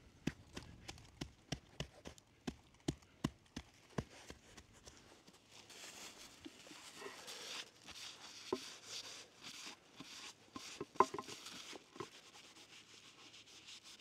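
Footsteps crunching in snow: an even run of sharp steps, about three a second, for the first few seconds, then a rougher, hissing crunch.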